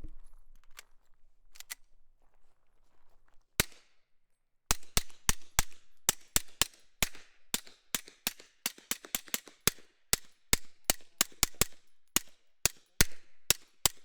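Suppressed Beretta M9A4 9mm pistol firing: a single shot, a pause of about a second, then a long string of roughly thirty shots fired at two to three a second.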